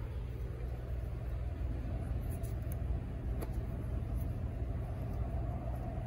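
Steady low rumble of workshop background noise, with a few faint clicks around the middle as an Allen key turns the loose intake manifold screws on a two-stroke string trimmer.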